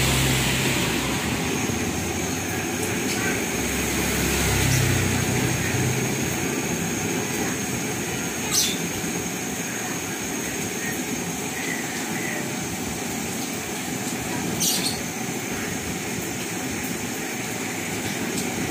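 A stove burner running steadily under a large pot of sugar syrup that is heating towards the boil. A low rumble under it fades after the first few seconds, and there are two sharp clicks, one at about eight and a half seconds and one near fifteen.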